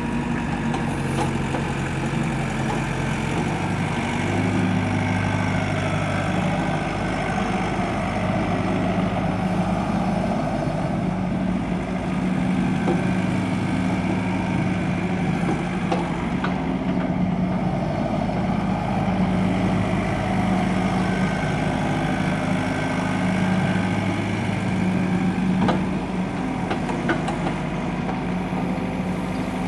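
Volvo EW55 wheeled excavator's diesel engine running steadily, its note shifting up and down slightly a few times as the arm and bucket are worked.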